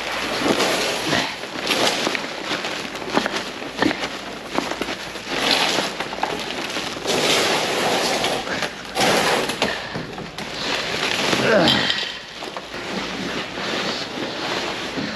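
Plastic trash bags rustling and crackling as a heavy load of trash is handled, in irregular loud bursts.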